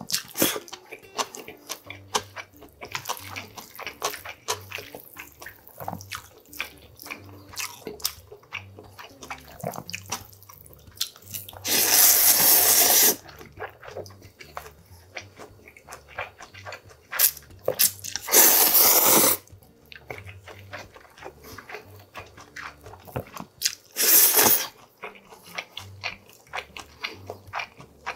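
Close-up slurping of bibimmyeon noodles: three loud slurps spaced several seconds apart, the first two about a second long and the third shorter. In between, steady chewing with small wet mouth clicks and smacks.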